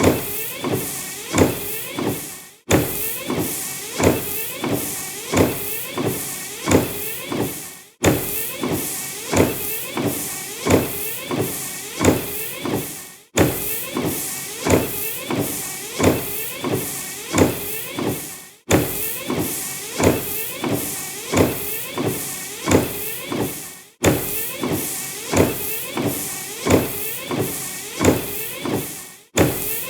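Car windshield wipers sweeping back and forth across the glass, a rubbing squeak on each stroke, about three strokes every two seconds. The run breaks off abruptly about every five seconds and starts again.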